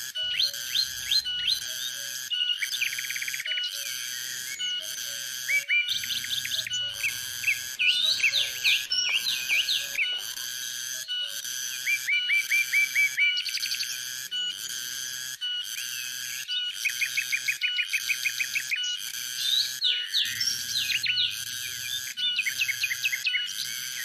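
Cicadas calling in an even pulsing buzz, about three pulses every two seconds. Over them, birds chirp and whistle in short rising and falling notes and quick rapid-fire runs.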